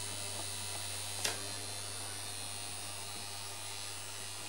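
Steady low electric hum from the punched card reader setup, with one sharp click just over a second in and a few faint ticks.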